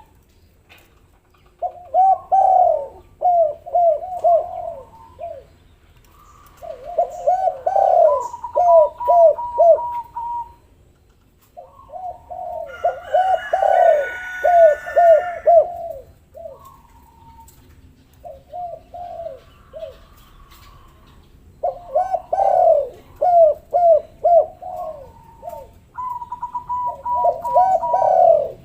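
Spotted doves cooing: about six bouts of short, low, falling coos, each bout a few seconds long with pauses between.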